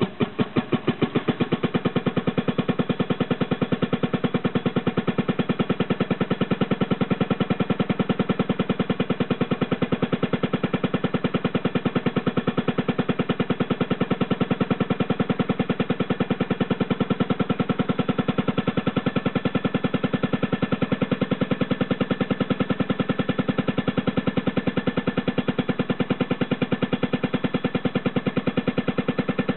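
1945 Fairmont M9 motorcar's engine running with a rapid, even beat of firing pulses, quickening in about the first second and then holding steady. The engine has just been brought back to life after about half a century left to rust.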